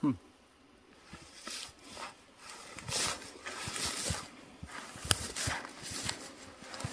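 Rustling and brushing through tall grass, irregular strokes about two or three a second starting about a second in, as a person moves on foot. A short voice sound falling in pitch comes at the very start.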